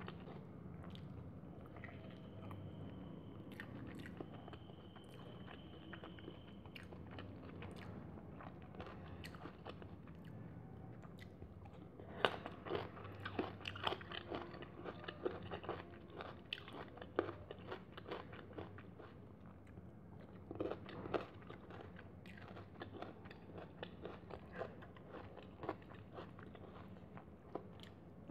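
Close-up eating sounds from a person eating rice and curry by hand: chewing with crisp crunchy bites and fingers working the food on a steel plate. Many short sharp clicks, denser and louder through the middle stretch.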